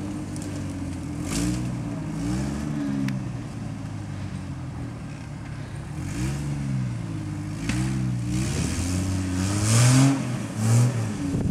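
1997 Jeep Wrangler TJ engine revving in short repeated bursts, its pitch rising and falling over and over, with a few brief hissy bursts over it. The revving is loudest near the end.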